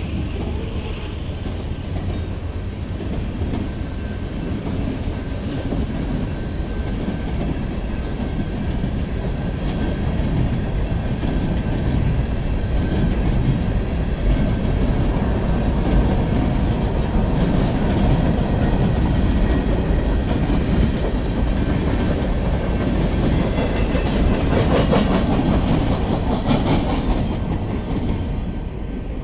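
Freight train's boxcars rolling past, steel wheels running on the rails in a continuous rumble that grows louder through the middle and drops away near the end as the last car goes by.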